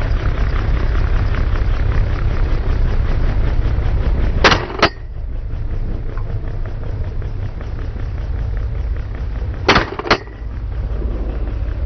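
Steady rumble of helicopter rotor and engine noise. It is broken twice, about five seconds apart, by gunshots: each time two sharp cracks come close together.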